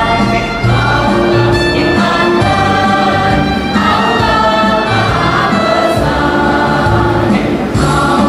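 A mixed choir of men's and women's voices singing together in long held notes that change about every second.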